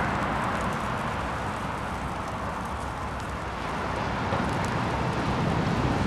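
Steady outdoor background noise, an even low rumble with hiss. It dips a little in the middle and swells again after about four seconds.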